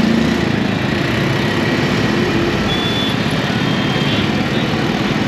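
Kawasaki Z900 inline-four motorcycle with a full-system exhaust, running at low speed in city traffic: a steady mix of engine, exhaust and road noise.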